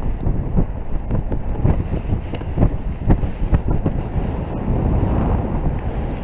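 Wind noise from the airflow of a paraglider in flight buffeting the camera's microphone: a loud, dense low rush with irregular gusty thuds throughout.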